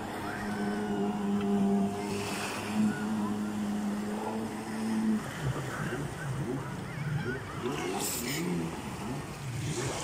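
Jet ski engine running: a steady drone for about five seconds, then its pitch rising and falling as the craft turns on the water.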